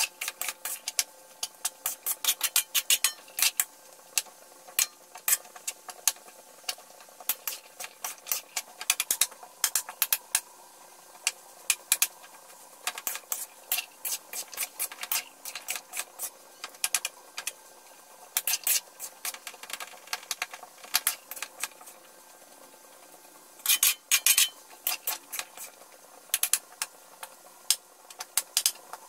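Metal spatula scraping and clinking against a metal wok while stir-frying diced squash: irregular clatter that pauses now and then and is busiest about 24 seconds in, over a faint steady hum.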